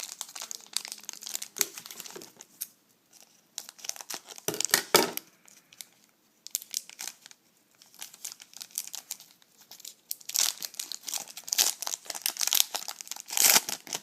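A trading-card pack's crinkly wrapper being handled and opened, crackling in irregular bursts with short pauses, loudest about five seconds in and again near the end.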